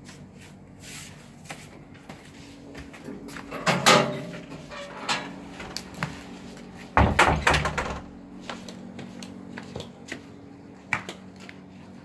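Knocks and thumps over a steady low hum, such as a door being opened and shut. The loudest knock comes about four seconds in, and a run of heavier thumps follows about seven seconds in.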